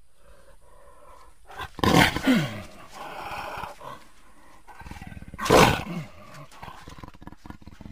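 Jaguar roaring: two loud calls about three and a half seconds apart, each dropping in pitch, with quieter calling between them.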